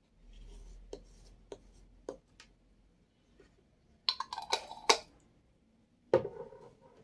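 A table knife scraping sauce across a lavash flatbread in a few soft strokes, then a quick clatter as the knife is set down on the bread about four seconds in, and a louder knock near the end as a glass jar is picked up off the table.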